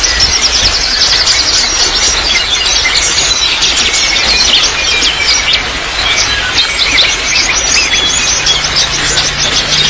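Many small birds chirping and twittering rapidly and continuously over a steady trickle of running water.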